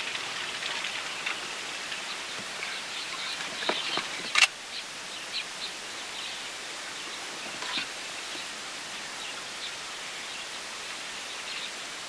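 A flock of doves flying up, a flurry of short, high wing and call sounds over a steady outdoor hiss, thinning out after the first couple of seconds. One sharp knock stands out about four and a half seconds in, and faint scattered clicks follow.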